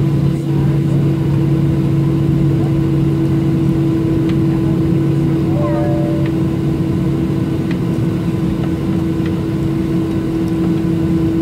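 Steady cabin drone of a Boeing 737-700 taxiing, heard from a window seat over the wing: its CFM56 engines running at idle, with a low rumble and a couple of steady humming tones.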